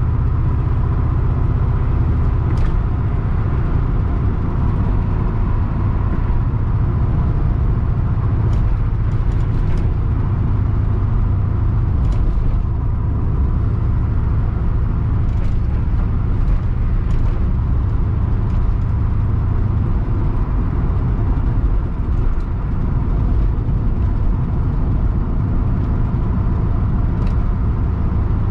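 Interior sound of a 1980 Pontiac Trans Am Turbo's turbocharged 4.9-litre V8 driving at a steady pace: an even low drone of engine and road noise, with a few faint clicks.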